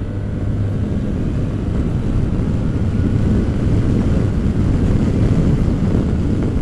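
SYM Maxsym TL 508 maxi-scooter's 508 cc parallel-twin accelerating at full throttle. After about a second its engine note is buried under wind rushing over the helmet-mounted camera, which grows steadily louder as speed builds.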